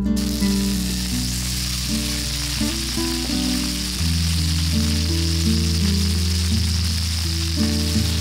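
Cubes of atsuage (thick deep-fried tofu) sizzling in hot oil in a wok, the sizzle starting suddenly as the cubes are tipped in and running on steadily.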